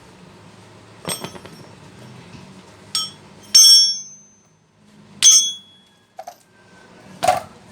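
Metal clinks and clanks, about six separate knocks, several ringing briefly, as the steel bodies and parts of broken jackhammers are handled and knocked together. The loudest two come a little past the middle.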